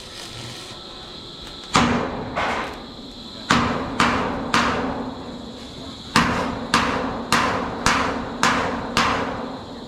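Hammer blows, about eleven strikes in uneven groups, each with a short ringing tail, as on steel on a building site.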